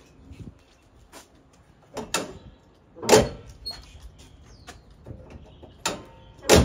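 Steel hood of a 1999 Chevy Silverado pickup being handled, lifted and dropped shut: a few sharp metal bangs, the loudest about three seconds in and just before the end.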